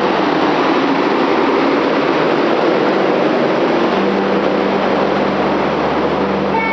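Passenger coaches of a Rajdhani Express train rolling past along a platform as the train pulls in. The wheels on the rails make a steady, even rumble and rush.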